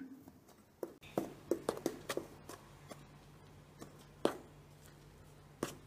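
A metal spoon clicking and scraping against an enamel pot while mixing wheat flour and water into chapati dough: a quick run of light clicks early on, then two sharper knocks later, over a low steady hum.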